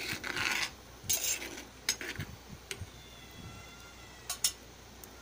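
Spoon stirring and scraping in a clay pot of squid curry, then a few sharp clinks of utensil on pot.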